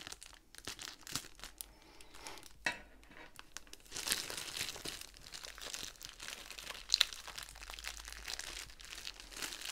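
Thin plastic bag crinkling and rustling as it is handled and its cut end pulled open, with scattered sharp crackles; the loudest crackle comes about seven seconds in.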